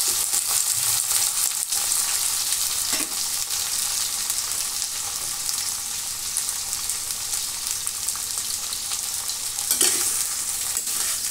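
Pointed gourd (parwal) pieces sizzling steadily as they fry in hot oil in a stainless steel kadai. A metal spatula scrapes the pan now and then as they are stirred, once about three seconds in and again near the end.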